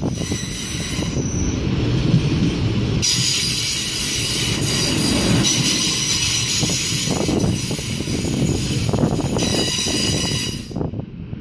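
Double-deck passenger train rolling slowly past at close range, its wheels squealing with several high tones at once from about three seconds in until they cut off near the end, over a steady low rumble of wheels on the rails.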